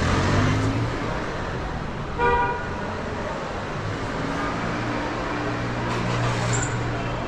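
A vehicle horn gives one short toot about two seconds in, over street noise and a low steady hum.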